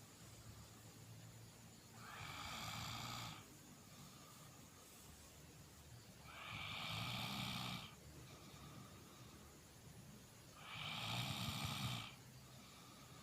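A sleeping man snoring: three loud snores about four seconds apart, each lasting about a second and a half, with quieter breathing between them.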